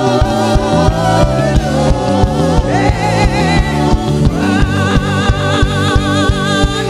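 Gospel worship music: a lead singer holding wavering notes over a band with bass and a steady drum beat.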